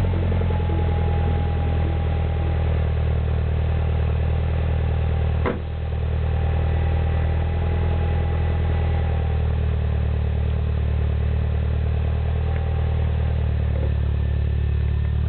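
Turbocharged 1.6 four-cylinder of a Mini Cooper S Clubman idling steadily through a stainless Magnaflow cat-back exhaust, a low burble at cold idle after a week unstarted. A single thud about five and a half seconds in.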